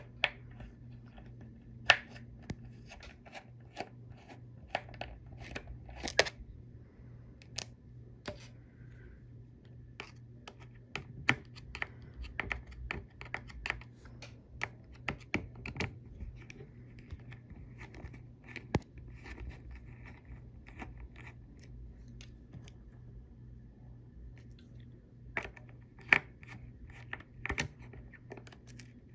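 Small screwdriver working the screws out of a Western Digital Caviar 31600 hard drive's metal top cover: irregular clicks and light scrapes of metal on metal, with a low steady hum underneath.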